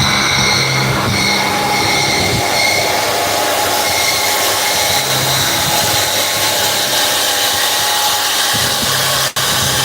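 Steady, loud mechanical running noise with a few held tones, typical of a machine running. It breaks off for an instant about nine seconds in.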